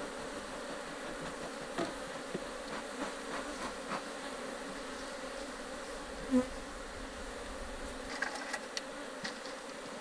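Honey bees from an open hive buzzing steadily in a massed drone, with a few light clicks and knocks scattered through it.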